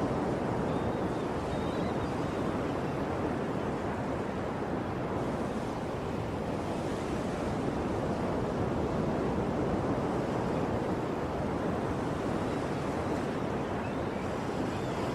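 Ocean surf washing steadily on a shore, a continuous rushing hiss with only slight swells in loudness.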